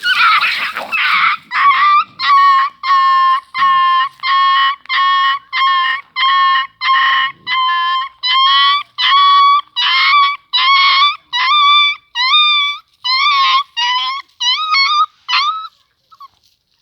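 A puppy crying: a run of some two dozen evenly spaced high whining cries, about two a second. The first cries hold a steady pitch and the later ones bend up and down, and the run stops shortly before the end. A short noisy burst comes first.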